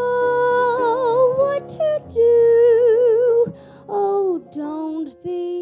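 A woman singing a musical-theatre ballad with piano accompaniment. She holds two long notes with wide vibrato in the first three and a half seconds, then sings shorter phrases that slide down in pitch.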